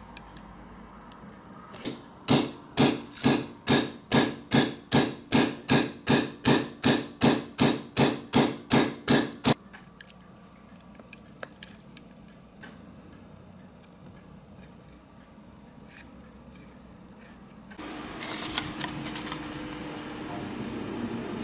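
Hammer tapping a steel punch held on a die-cast Matchbox toy truck: a regular series of about seventeen sharp, ringing metal taps, a little over two a second, stopping about three quarters of the way through.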